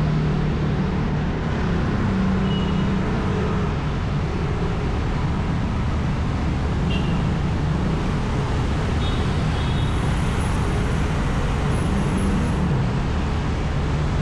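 Steady road traffic noise: engines running and tyres on the road, with a constant low hum.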